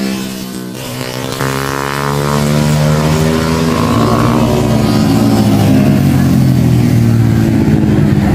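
Motorcycle engines passing at speed, one note dropping in pitch as a bike goes by. From about a second in, another engine note comes in, steadies and grows a little louder as a vehicle approaches.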